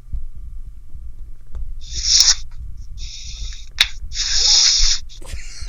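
A man's heavy, hissing breaths into a close microphone: three long exhalations a little apart, heard as distressed hyperventilating.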